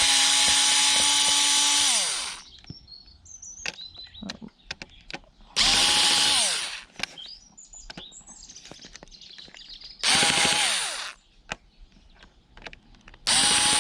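Cordless drill-driver spinning in four short bursts, each a steady whine of one to two seconds that winds down in pitch as the trigger is let go, as it backs screws out of a casing. Small clicks and knocks of handling come between the bursts.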